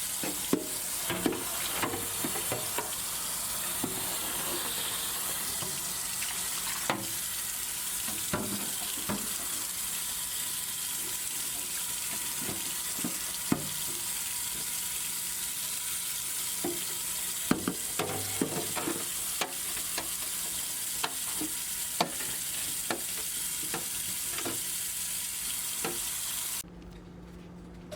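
Water running steadily from a kitchen tap, with scattered clinks and knocks of containers being handled. The running water stops suddenly near the end.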